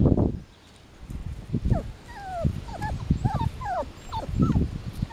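Five-week-old Samoyed puppies whimpering: a run of short, high, sliding whines and yips that starts about a second and a half in. A burst of low rumbling noise sits at the very start and another near the end.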